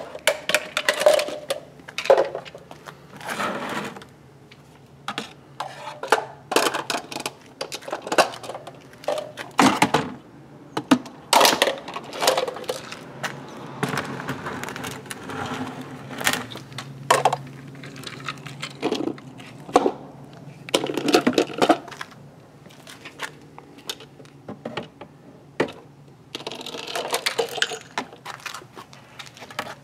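Irregular hard plastic clacks and knocks as small toy plastic bins are gripped and lifted with a reacher-grabber and bumped against a larger plastic bin.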